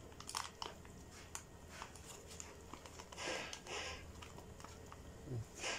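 Small foil sachet of chili powder crinkling as it is handled and shaken out, with scattered light clicks and a couple of short rustles past the middle.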